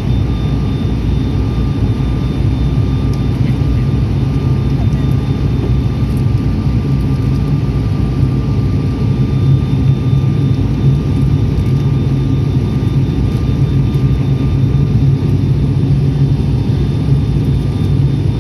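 Airliner cabin noise in flight: a steady, loud drone of engines and airflow, with two faint steady whining tones above it.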